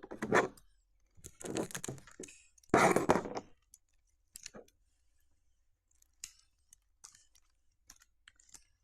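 Adhesive tape and paper being handled while tape is worked around a paper squishy: a few louder rustles in the first few seconds, then scattered small crinkles and clicks.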